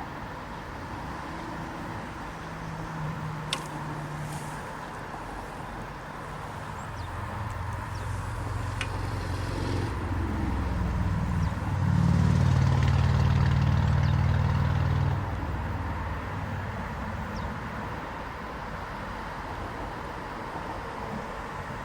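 A motor vehicle's engine passing nearby: a low hum that builds, is loudest for a few seconds past the middle, then fades away.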